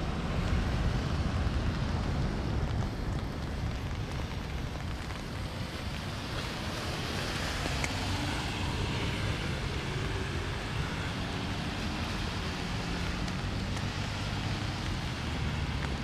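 Steady outdoor rain ambience: a soft wash of light rain on wet pavement, mixed with a low rumble of wind on the microphone and distant road traffic.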